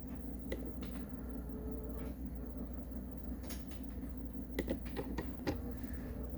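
Steady low room hum with scattered light clicks and knocks, a small cluster of them about four and a half to five and a half seconds in, as of objects being handled.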